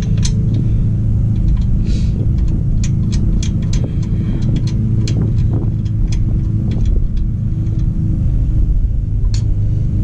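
Small metallic clicks and clinks of steel lug nuts being handled and threaded by hand onto the wheel studs, scattered irregularly over a steady low rumble with a faint hum.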